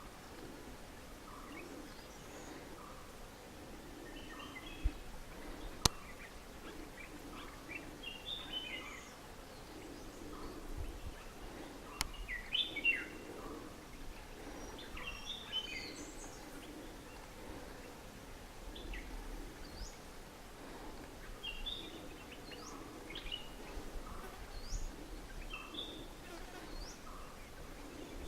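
Wild birds calling: scattered short chirps and whistled notes from several birds, some sweeping up, some down. Two sharp clicks stand out, about six and twelve seconds in.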